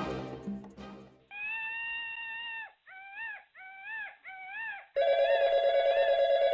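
A music cue fades out, then a dog howls: one long held howl followed by three short rising-and-falling howls. About five seconds in, a telephone starts ringing with a steady warbling ring.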